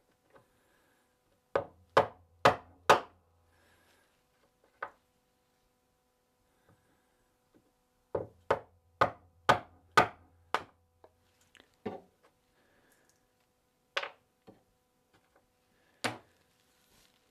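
Sharp hammer blows on wood: a quick run of four, about two a second, then a run of six, then a few single blows a couple of seconds apart.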